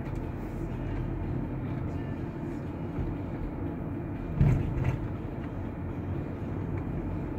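A Toyota car being driven, heard from inside the cabin: a steady low engine and road rumble. A brief louder sound comes about four and a half seconds in.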